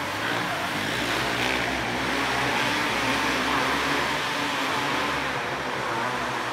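Several 500cc outlaw cage karts racing together on a dirt oval, their engines running hard as a steady blended drone whose pitch wavers up and down through the turns, heard inside a large enclosed arena.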